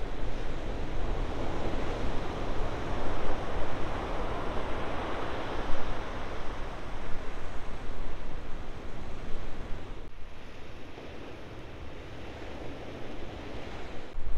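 Ocean waves breaking and washing in, with wind rumbling on the microphone. The surf is loudest a few seconds in, and the sound drops abruptly about ten seconds in and stays softer.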